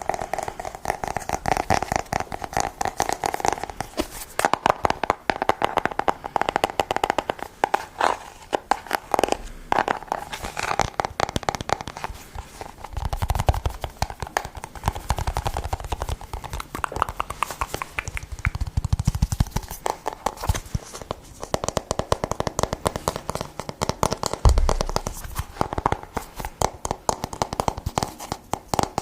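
Fast close-up tapping: a dense stream of small clicks all through, with a few heavier low thumps in the middle and once near the end.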